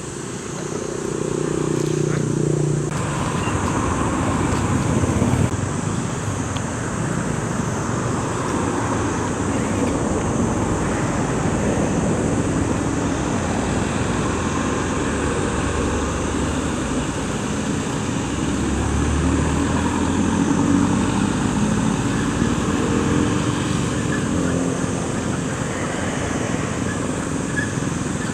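Steady outdoor traffic noise, with vehicle engines running and passing.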